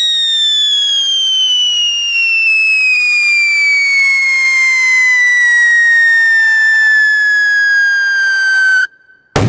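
Scream 100 whistle-to-salute firecracker whistling: one loud, shrill whistle falling steadily in pitch for about nine seconds, then cutting off suddenly. After a brief gap, at the very end, its 100 g ground salute goes off with a loud bang.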